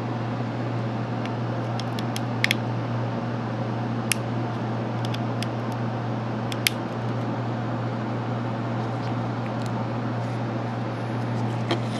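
A few small sharp clicks as a cutter blade is worked under the tightly glued heat spreader of an Intel Core i7-3770K processor, over a steady low hum and hiss.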